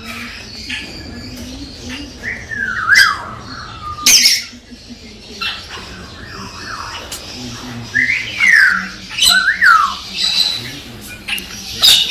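Galah (rose-breasted cockatoo) calling: a series of short squawks that glide up and down in pitch, with a sharp, louder screech about four seconds in. The calls are a male's courtship calling to stimulate a female.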